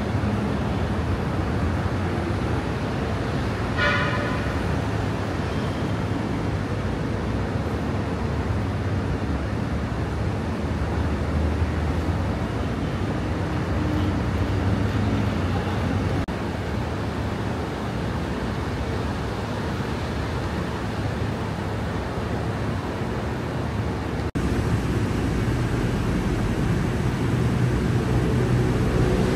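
Steady city road traffic: a constant rumble of engines and tyres, with one short car horn toot about four seconds in.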